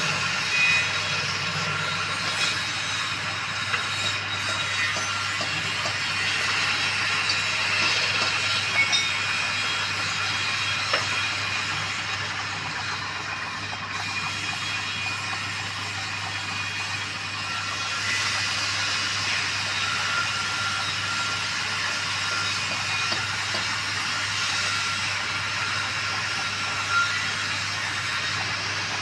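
Wood lathe running, with a steady low hum and a continuous hiss over it and a few short clicks.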